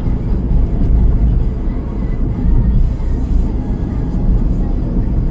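Steady low rumble of road and engine noise from a car being driven.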